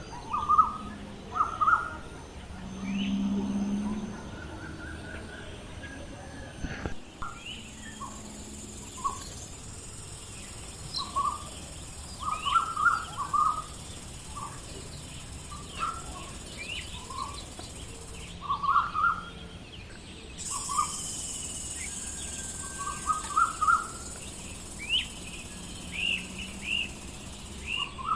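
Birds chirping: many short, scattered calls over steady outdoor background noise, with a brief low hum about three seconds in.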